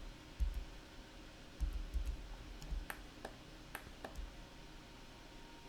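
Faint, scattered clicks of a computer mouse and keyboard, about half a dozen spread over a couple of seconds, with a few soft low thumps in the first two seconds.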